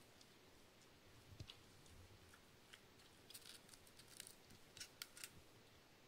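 Cavalier King Charles spaniel chewing raw cauliflower: faint crunches, bunched together from about three to five seconds in.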